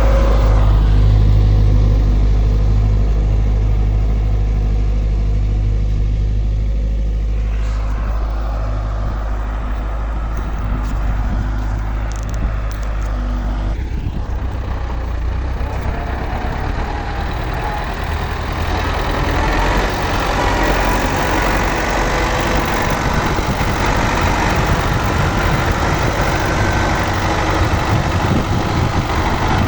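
MTZ tractor's diesel engine running: a steady low drone that turns rougher about halfway through and grows stronger toward the end.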